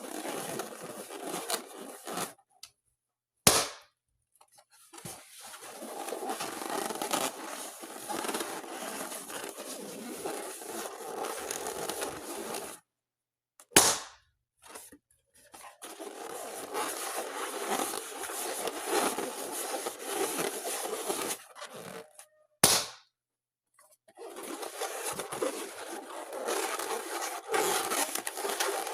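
Rubber balloons being inflated, heard as a long stretch of rushing, rubbing noise, each ended by a sharp, loud pop as the balloon bursts. Three pops come roughly nine to ten seconds apart.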